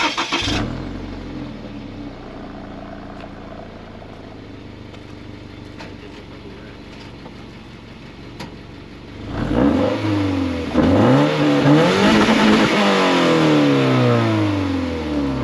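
Toyota GT86's 2.0-litre flat-four boxer engine on its stock header and exhaust, settling to a steady idle, then blipped several times in quick succession in the last five seconds or so, the pitch rising and falling with each rev.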